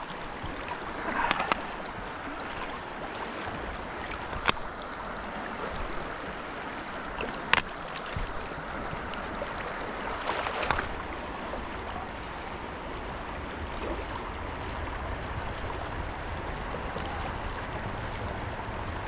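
Steady rush of a fast river current running over rocks in shallow riffles. It is broken by brief splashy bursts about a second in and again near the middle, and by two sharp clicks.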